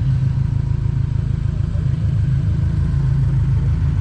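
Subaru turbocharged flat-four engine idling steadily with a low, even rumble.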